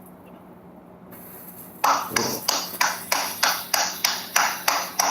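Roman candles firing: a faint hiss, then from about two seconds in a rapid, even run of sharp pops, about three a second.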